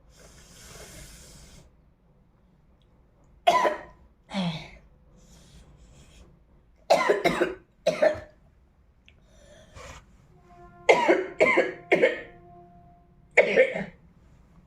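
A girl coughing in several short fits, about ten coughs in all, some of them voiced. A soft breathy hiss comes before the first fit.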